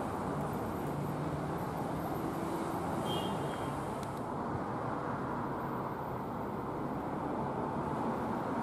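Steady hum of city street traffic, with a brief high-pitched sound about three seconds in.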